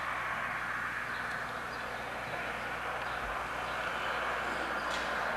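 A steady rushing noise drone with no clear pitch, easing a little in the middle and swelling again near the end.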